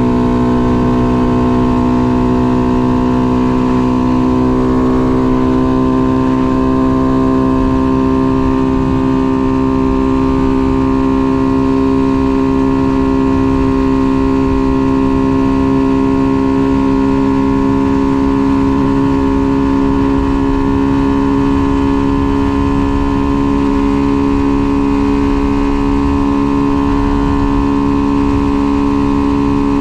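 Tuned 125cc motorcycle engine, with modified intake and exhaust and ignition advanced to 42 degrees, running steadily at high revs while cruising. Its pitch climbs slightly over the first few seconds and then holds. Wind and road rumble sit underneath.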